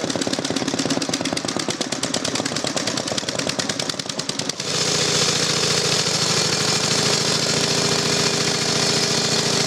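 A 1913 Triumph 498cc single-cylinder engine running with a rapid, even beat. A little under halfway through, the sound changes abruptly to the steadier hum and hiss of a Sunbeam 770cc V-twin engine running.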